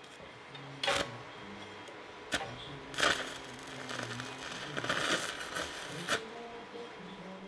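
Arc welding on a steel gas cylinder. The arc strikes with a few sharp cracks, then crackles and sputters steadily from about three seconds in until around six seconds, as a weld is run.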